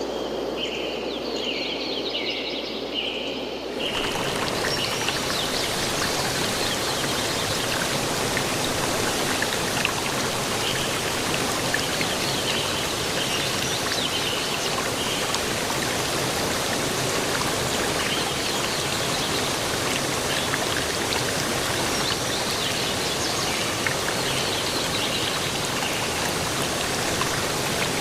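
Steady rushing of falling water from a waterfall, with birds chirping over it. About four seconds in, the sound changes abruptly to a louder, fuller rush.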